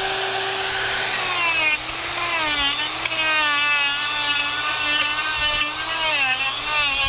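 Hercules 1/4-inch electric die grinder whining steadily at full speed, then carving wood: from about a second in, its pitch repeatedly sags and recovers as the bit bites into the wood and eases off.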